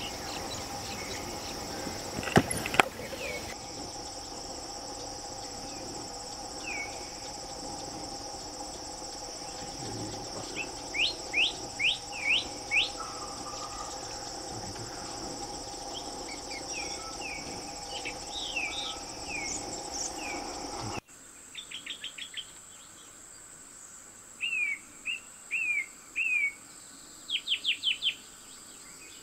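A steady insect drone of crickets or cicadas, with a bird repeatedly giving short, quick whistled notes in runs of four or five. Two sharp knocks come about two seconds in, and about two-thirds of the way through the background drone drops away suddenly.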